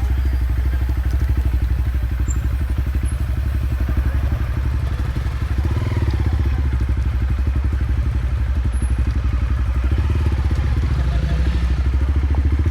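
Motorcycle engine running steadily on an off-road ride, with a rapid, even firing pulse under a deep rumble.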